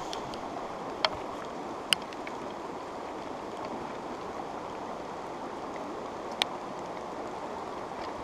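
Rushing water, a steady noisy rush, with a few sharp clicks about one and two seconds in and again past six seconds.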